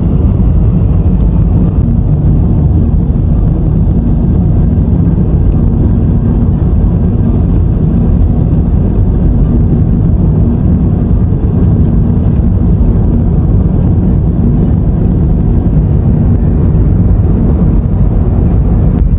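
Loud, steady road and engine rumble inside a moving car's cabin, with a faint steady hum.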